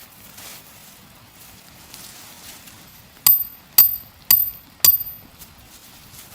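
Four sharp strikes about half a second apart, each with a brief high ring, like hammer blows.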